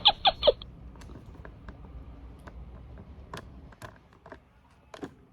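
A few short, voice-like pulses right at the start, then faint, scattered light clicks and taps.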